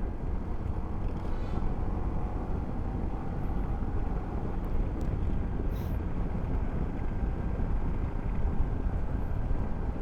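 Steady rumble of a motorcycle on the move: engine, tyre and wind noise picked up by a small clip-on mic with no furry windscreen.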